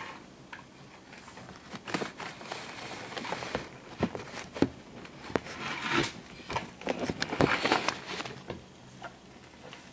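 Irregular clicks, knocks and rustling as a Nile monitor lizard clambers over pens and small objects, its claws scraping and tapping, while metal feeding tongs and a leather glove shift about. The sharpest clicks come in the middle of the stretch, with rustling in between.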